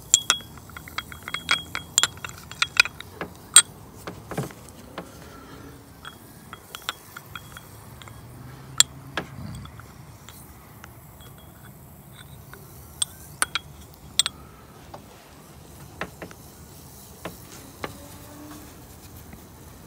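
A carbide burr's metal shank clinking and tapping against the inside of a glass mason jar as it is stirred in caustic soda solution. The clinks come in a quick irregular run over the first few seconds, then singly now and then, with a sharp one about nine seconds in and a pair around thirteen to fourteen seconds.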